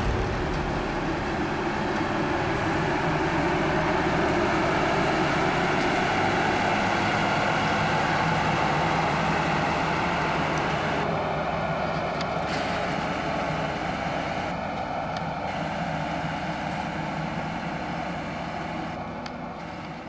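Claas Tucano 440 combine harvester's diesel engine running steadily, fading out near the end.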